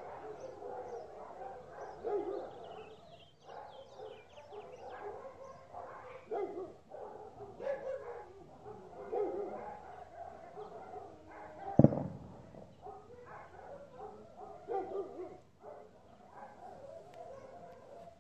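Dog barking over and over, a short call every second or two. There is a single sharp, loud knock about twelve seconds in.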